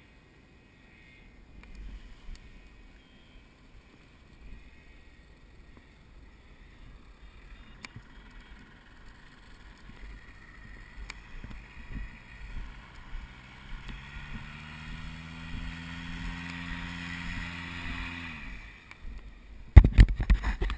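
An engine hums, rising slightly in pitch and then winding down near the end, over wind on the microphone. Then come loud knocks as the helmet camera is handled.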